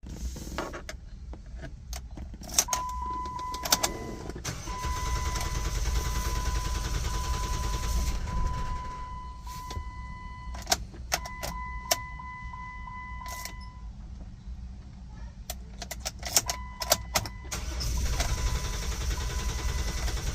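Jeep Wrangler JK 3.8 V6 cranking on the starter twice without firing, the no-start that followed a cam position sensor replacement. Between the cranks come clicks from the key and ignition and a repeating dashboard warning chime.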